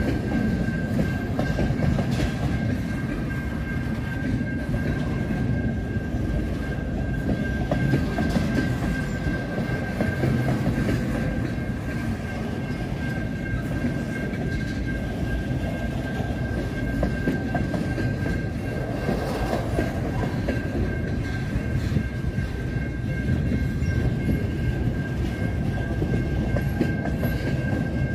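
Empty centerbeam flatcars of a CN freight train rolling steadily past at a level crossing: a continuous loud rumble of steel wheels on rail. A steady high tone runs over it without a break.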